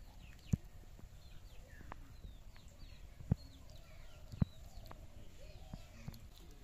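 A steel serving spoon knocking and scraping against stainless steel dishes while curry is ladled out: a few sharp taps, three of them loudest. Small birds chirp in the background.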